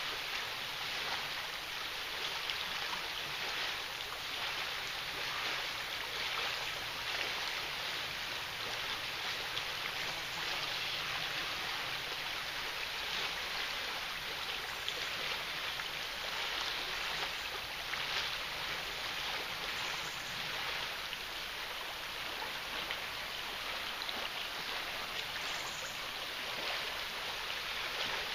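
Fast-flowing river: a steady rushing of water over its rippled current, with no breaks.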